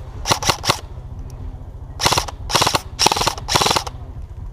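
Electric airsoft rifle firing: three quick shots in the first second, then, after a short pause, four short bursts of rapid automatic fire about half a second apart.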